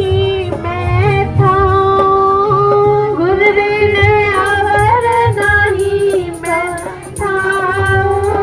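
Sikh devotional singing (shabad kirtan): a woman's voice singing a slow melody with long held notes over instrumental accompaniment.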